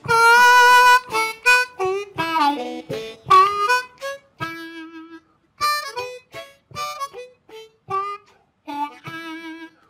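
Blues harmonica played solo, cupped in both hands. It opens with a loud note held about a second, then runs through short riffs with bent notes and brief gaps between phrases.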